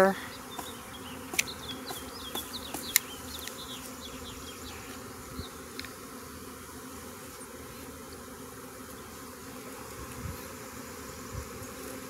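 A swarm of honey bees buzzing around an open hive box, a steady low hum. Two sharp clicks stand out in the first three seconds.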